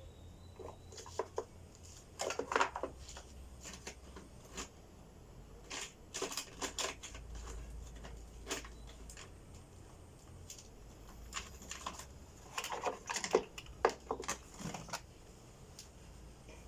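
Packaging being handled during an unboxing: bursts of rustling, crinkling and sharp clicks, about two seconds in, again around six to seven seconds, and again from about twelve to fifteen seconds.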